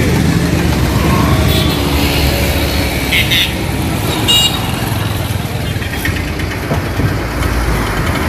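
Busy street traffic: steady engine noise of passing cars and motorcycles, with a couple of short horn toots about three and four and a half seconds in.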